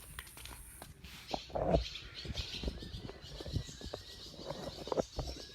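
Birds chirping in outdoor ambience, mixed with scattered clicks and knocks from close by. A louder thump comes a little under two seconds in.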